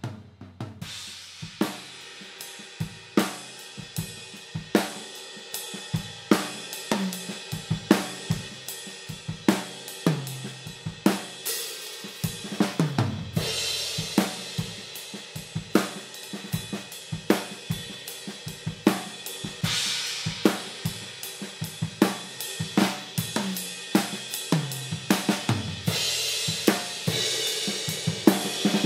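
A full drum kit played in a steady groove, heard through overhead microphones: kick, snare and hi-hat, with toms and fills. Cymbal crashes ring out about a third of the way in, again past the middle, and near the end.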